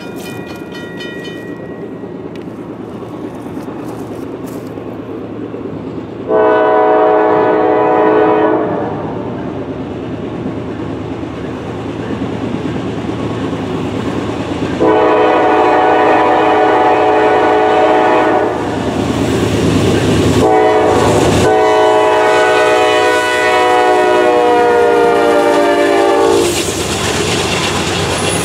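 Norfolk Southern freight locomotive's air horn sounding long blasts for the road crossing: one about six seconds in, another around fifteen seconds, and a last long blast near the end whose pitch drops as the engine nears and passes. Under the horn, the low rumble of the approaching diesel locomotives grows steadily louder.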